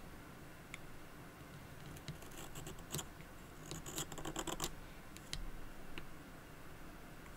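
Knife blade shaving wood off a pencil by hand: a few light ticks, then a run of quick scraping cuts about two to four and a half seconds in, followed by a couple of single ticks.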